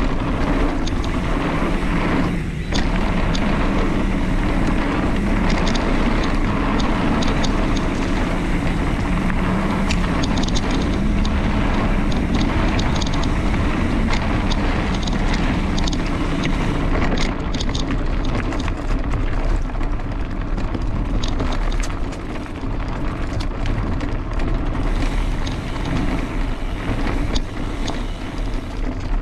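Wind buffeting the microphone of a camera on a fast downhill trail ride, a steady loud rumble with many small rattling clicks over it. The rumble thins a little about two-thirds of the way through.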